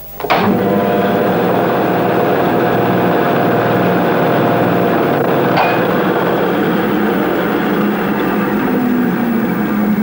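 A contactor closes with a sharp click and a 5-horsepower direct-current electric motor starts at once, then runs with a steady hum of several held tones. A single click sounds about halfway through.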